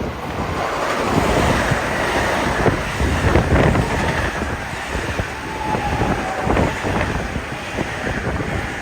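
Electric passenger train passing at speed, its wheels clattering over the rail joints, with a rush of wind on the microphone.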